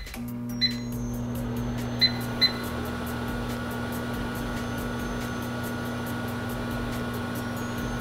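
Microwave oven running with a steady electrical hum, with three short beeps: one a little under a second in and two close together about two seconds in.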